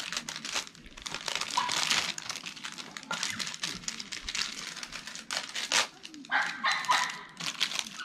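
Plastic bags and packaging crinkling and rustling in quick, irregular bursts, with light clicks of gear being handled and unpacked.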